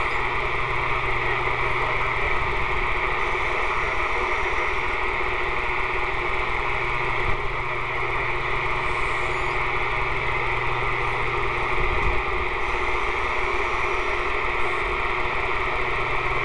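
Steady hiss and static from a Texas Ranger SSB CB radio's speaker.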